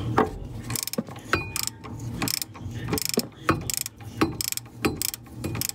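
Hand ratchet wrench with a 17 mm socket clicking in repeated short strokes as it turns the nut on a steering stabilizer mount.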